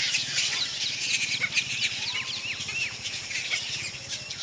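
A roosting colony of fruit bats (flying foxes) calling: many short, high chirps and squeaks overlapping, some sliding up or down in pitch, over a steady low hum.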